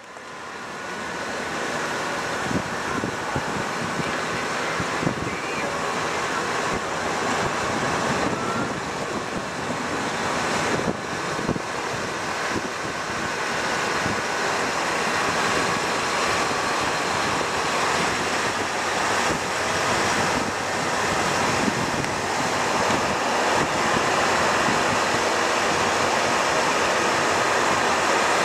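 Steady rush of wind buffeting the microphone, mixed with road noise from a moving vehicle, growing gradually louder over the stretch.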